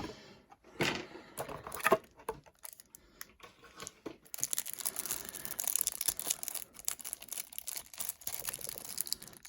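Plastic wrapping crinkling and tearing as a sealed trading-card box is unwrapped by hand: a few sharp clicks and rustles at first, then dense, continuous crinkling from about four seconds in.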